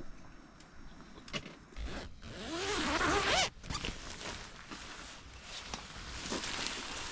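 A tent door zipper drawn open in one pull of about a second, a couple of seconds in, with light rustling around it.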